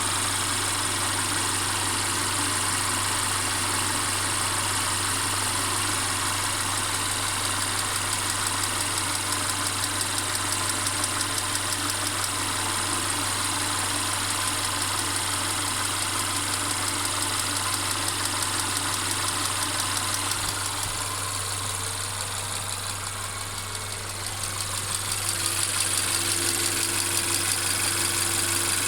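Mercedes-Benz CLA 250's 2.0-litre turbocharged four-cylinder engine running steadily, with the constant rattling that the owner reports as a fault. The sound dips briefly about three quarters of the way through, then comes back.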